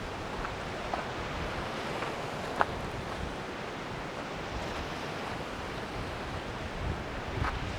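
Steady rush of wind, with a few faint clicks, the sharpest about two and a half seconds in.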